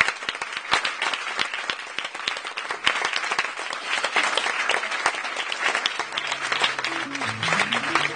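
Audience applauding steadily, dense clapping throughout. Near the end a few low instrumental notes of a song's introduction start quietly beneath the clapping.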